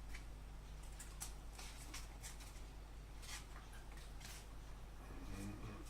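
Faint, scattered rustles and light taps of foam plane parts being handled, over a steady low hum.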